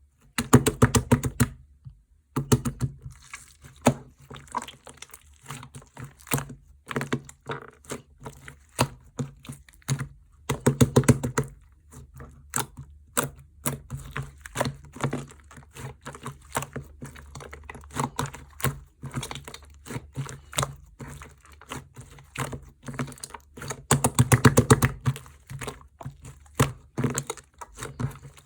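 Slime being pressed, poked and squeezed by hand, giving rapid crackling clicks and pops. Denser bursts of clicking come about a second in, around the middle, and near the end.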